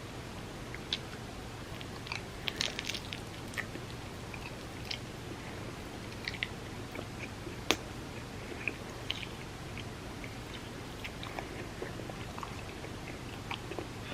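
Close-miked chewing and biting of food, with irregular crisp clicks and small crunches: a cluster about two and a half seconds in and one sharp click near eight seconds.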